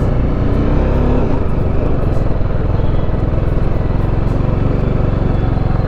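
TVS Apache RR310's single-cylinder engine running steadily as the motorcycle rides along, heard through a helmet microphone with a continuous low rumble.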